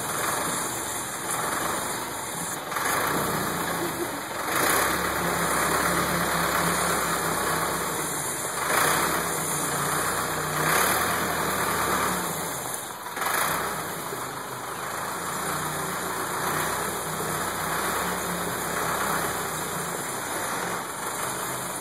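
Ford 655A backhoe's diesel engine running steadily, with louder stretches in the middle as the machine is worked.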